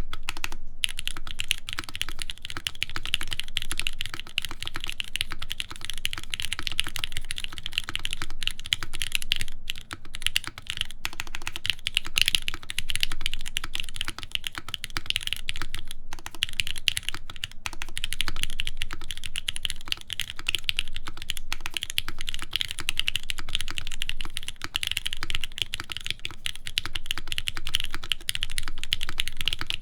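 Continuous fast typing on a custom mechanical keyboard with lubed Gateron Milky Pro Yellow linear switches in an aluminum plate: a steady run of quick keystroke clacks, with a few brief pauses.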